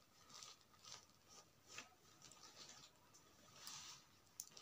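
Faint scratching of tailor's chalk drawn across blouse lining fabric in several short strokes, marking a straight line.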